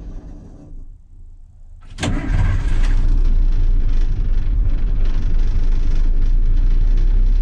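1980 Ford F700 truck engine on a cold start: after a brief lull it fires abruptly about two seconds in and keeps running, loud and steady with a deep rumble.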